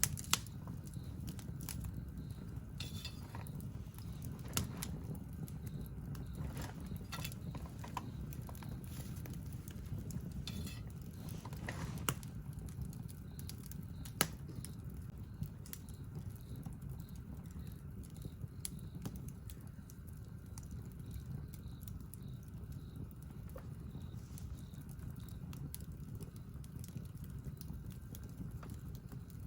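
Wood campfire burning, with scattered sharp pops and crackles from the burning wood over a steady low rumble.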